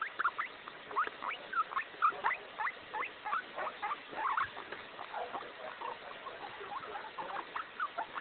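Guinea pig making a rapid string of short, high squeaks, about three a second, the sounds its owner hears when he is happy.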